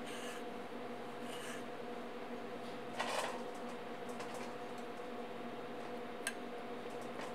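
A chef's knife slicing through halved stone fruit on a wooden cutting board: a few soft slicing swishes, one louder cut about three seconds in, and a sharp tap of the blade on the board about six seconds in, over a steady background hum.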